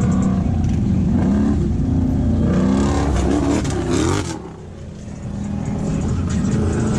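Off-road vehicle engines revving, their pitch rising and falling, with a sudden drop in level about four and a half seconds in before they build again.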